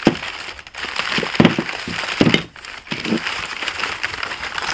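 Crumpled packing paper being handled and pushed aside, crinkling and rustling in irregular bursts.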